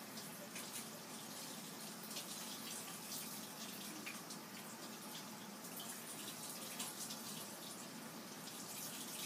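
Faint, steady tap water running into a sink, with hands rubbing and splashing under it.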